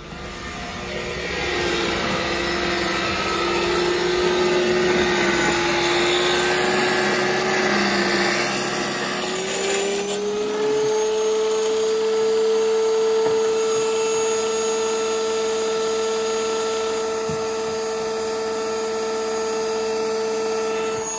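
Electric tile saw running and cutting tile: a steady motor whine over a harsh cutting noise. About halfway through, the cutting noise drops away and the motor's pitch rises as it runs on freely.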